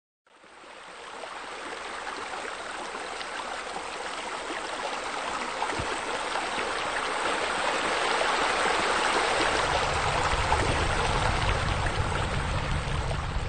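Running, splashing water from a pool's bubbler water feature, a steady rush that fades in over the first second or so and grows louder toward the middle. A low rumble joins in about ten seconds in.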